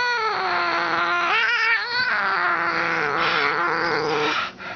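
Domestic cat yowling while it bites and attacks: one long, loud, drawn-out cry that wavers in pitch and breaks off near the end.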